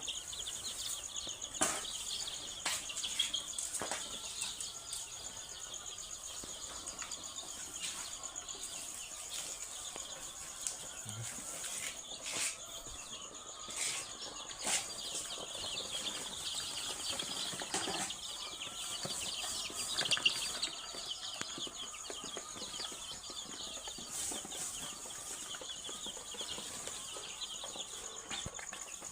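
A flock of young ISA Brown pullets chirping and clucking continuously, a dense overlapping chatter. A few short knocks and rustles stand out here and there, and a steady high-pitched tone runs underneath.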